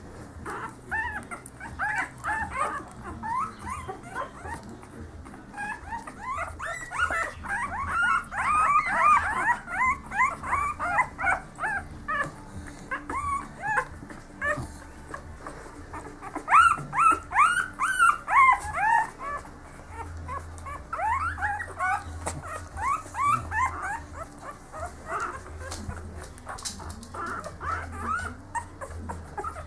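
A litter of newborn Staffordshire bull terrier puppies, about a week old, squeaking and whimpering together in many short, overlapping, high-pitched cries, swelling in waves and louder in bursts.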